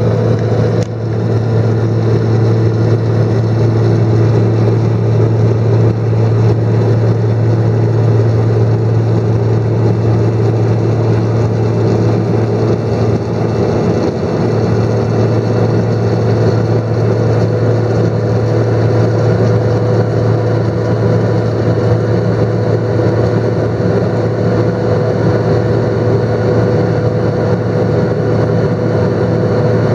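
Single-engine light aircraft's piston engine and propeller droning steadily, heard from inside the cabin during the climb after takeoff.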